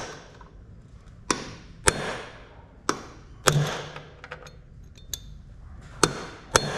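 A hammer striking a pin punch to stake the lip of the Hilux transfer case output flange nut into the locking groove on the shaft, locking the nut so it cannot come undone. About seven sharp metallic taps at uneven intervals, each ringing briefly.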